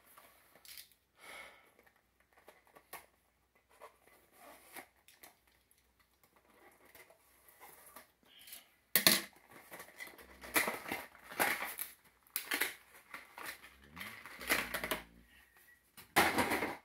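Plastic blister packaging of an action figure being pried and torn open by hand, with irregular crinkling, crackling and tearing. The sounds are sparse at first and become busier and louder about halfway through.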